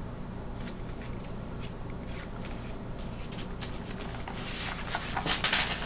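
Paper pages and a paper tag rustling as they are handled, with a few soft clicks, over a low steady hum; the rustling gets louder about four seconds in.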